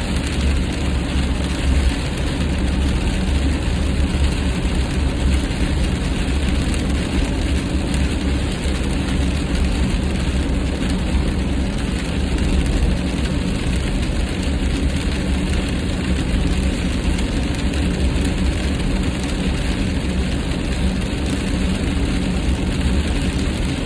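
Steady road noise from a car driving at highway speed on a wet interstate: a low engine and tyre rumble with the hiss of tyres on the wet road.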